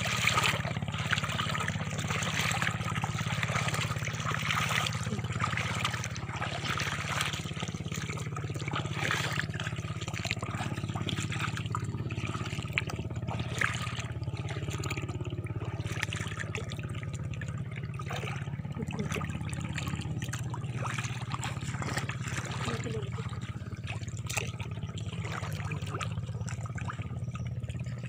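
Shallow seawater trickling and sloshing as someone wades ankle-deep over a sandy tidal flat, with many small crackles and splashes running throughout.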